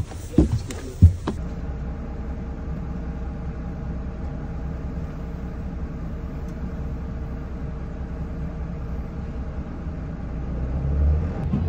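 Bus engine running, heard from inside the cabin as a steady low rumble with a faint steady hum, growing louder near the end. A couple of sharp thumps in the first second are footsteps boarding.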